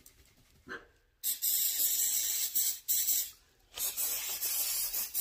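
Aerosol electrical contact cleaner sprayed in three hissing bursts, starting a little over a second in, with brief pauses between them.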